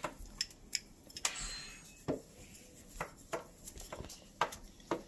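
Metal tool scraping old plumber's putty off a metal sink strainer flange: a string of short, irregular scrapes and clicks of metal on metal.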